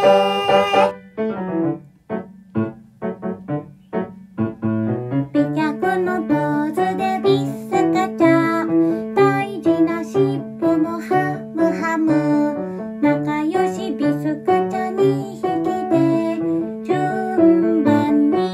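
A bouncy children's song with piano accompaniment and a woman singing. About a second in, a short passage of detached piano notes plays. From about five seconds the accompaniment fills out into a steady rhythm under the sung lines.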